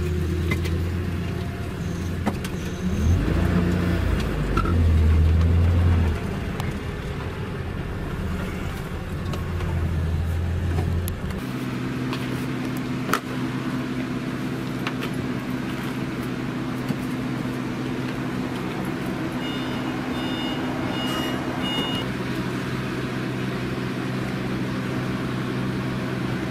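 Motor vehicle engines idling with a steady low hum, louder for a few seconds about 3 to 6 seconds in. About 11 seconds in the hum changes suddenly to a different steady engine note, and a few short high beeps sound a little after the middle.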